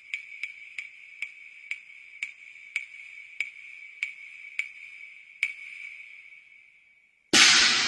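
A small high-pitched bell in a Cantonese opera accompaniment struck again and again, the strokes slowing from about five a second to under two a second while its ring fades away. Near the end the full accompaniment ensemble comes in loudly.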